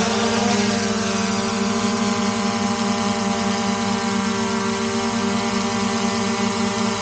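DJI Mavic Air 2 quadcopter lifting off and hovering low: its four motors and propellers give a loud, steady buzzing hum, a strong low tone with a stack of higher tones above it.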